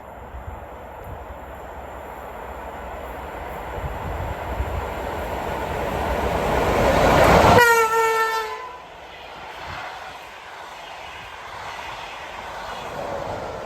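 Swedish train approaching, its running noise on the rails growing steadily louder. Just under eight seconds in it sounds one short horn blast of about a second as it passes, the pitch sagging slightly. The running noise then drops away abruptly as the train goes by.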